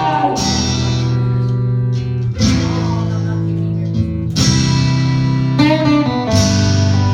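Acoustic guitar strumming four chords about two seconds apart, each left to ring: the opening of a song.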